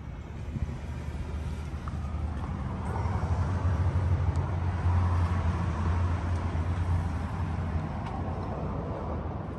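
Suzuki Carry mini truck's small three-cylinder engine idling steadily. It grows louder for a few seconds midway, as heard from under the truck near the engine and gearbox.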